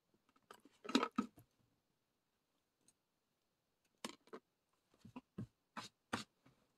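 Faint, light clicks and taps from handling eating utensils and a dish while eating birthday cake: a few about a second in, then a string of about six from four seconds in.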